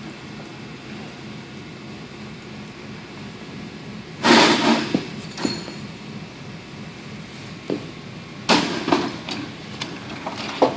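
Clattering knocks as a firefighter in turnout gear and an air tank crawls and pushes against a fan-wheel exercise bike and metal equipment frames. There are two bursts of banging, about four and eight and a half seconds in, a short metallic clink just after the first, and a sharp knock near the end.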